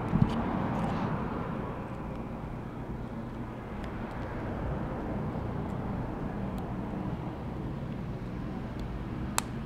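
Steady low hum and rumble of background noise. Over it come a few small clicks of iPhone 6 flex-cable connectors being handled and pressed onto the logic board, with one sharper click near the end.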